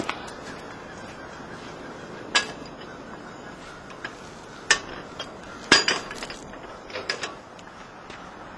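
Scattered metallic clanks and knocks of iron weight plates being loaded onto a steel motor test stand as ballast, the loudest a little before the middle and a small cluster near the end.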